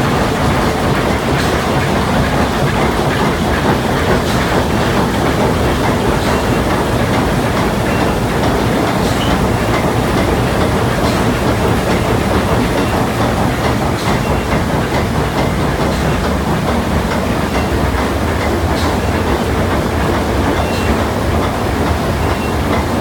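Triple-expansion steam engine of a twin-screw steamship running, heard close up in its engine room: loud and steady, without pause.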